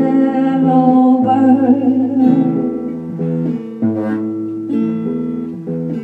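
A woman singing and strumming an acoustic guitar. Her voice holds one long, wavering note that ends about two seconds in, and the guitar then plays on alone, chord after chord.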